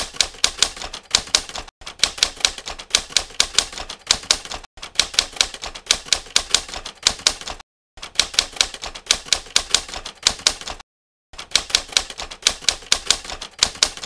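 Rapid mechanical key clicks like a typewriter being typed on, in runs of about three seconds separated by short breaks of dead silence.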